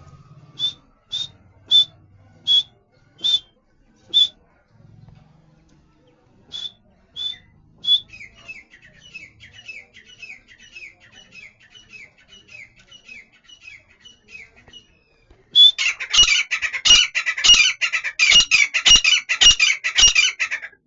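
A teetar (francolin) calling. First comes a series of single sharp, high notes about half a second to a second apart, then a faster, quieter chattering run. The last five seconds are loud, rapid, harsh repeated calls.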